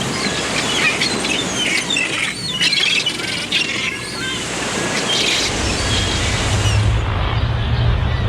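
Many small songbirds chirping and twittering in quick, overlapping short calls over a steady background hiss. About five and a half seconds in, a low steady hum sets in and the birdsong thins out.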